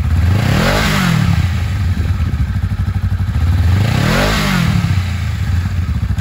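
2018 Honda Rebel 500's parallel-twin engine idling and blipped twice with the throttle, about a second in and again about four seconds in, the pitch rising and falling back to idle each time.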